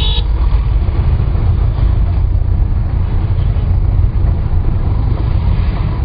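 Street traffic noise: a steady, heavy low rumble of vehicles on a busy city street, with a horn toot cutting off right at the start.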